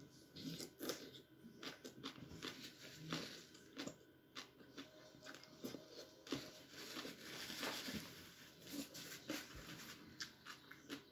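Soft, irregular chewing and mouth sounds of someone eating papaya salad by hand: small crunches, smacks and clicks scattered throughout.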